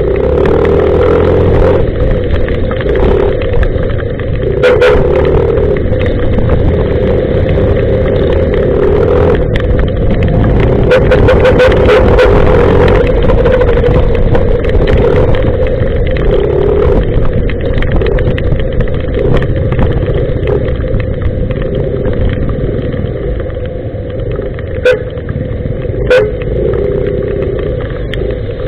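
Motorcycle riding in traffic on a wet road: steady engine and road noise, with a few sharp clicks, two of them close together near the end.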